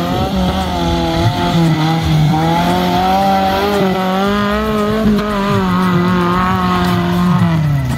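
Tubular off-road buggy's engine revving up and held at high revs while the buggy drives through loose dirt, the pitch wavering with the throttle and dropping away near the end.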